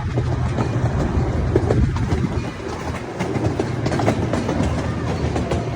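Zoo ride-on train running along its track: wheels clicking over the rail joints over a steady low drone from the train.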